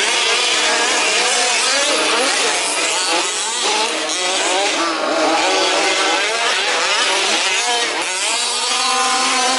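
Several 1/5th-scale RC Baja cars' small two-stroke petrol engines buzzing and revving as they race, with many overlapping pitches rising and falling.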